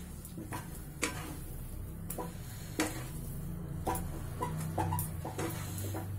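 Wooden spatula knocking and scraping against a non-stick pan as a thick halwa paste is stirred and turned, giving irregular clicks about once or twice a second over a steady low hum.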